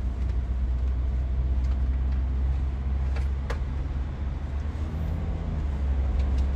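Steady low rumble of a moving car heard from inside the cabin, engine and road noise, with a couple of faint clicks about halfway through.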